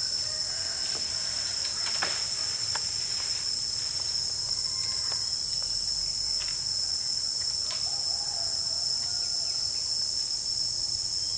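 Steady, high-pitched chorus of insects shrilling without a break, with a few faint clicks here and there.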